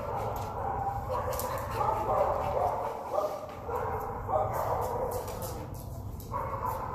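Dogs barking, one bark after another with hardly a break.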